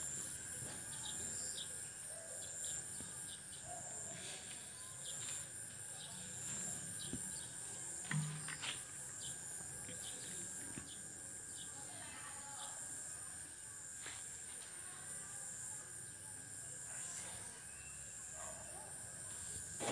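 Faint rural background dominated by insects droning steadily at a high pitch, with scattered short chirps and a few soft clicks and knocks.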